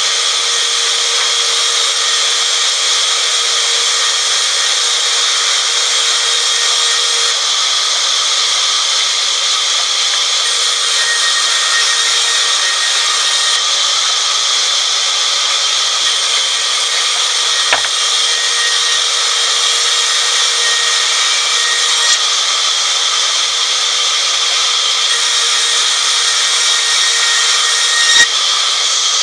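Sawmill band saw cutting lengthwise through a teak log, a steady high hiss of the blade in the wood. A few short knocks come through it, the loudest near the end.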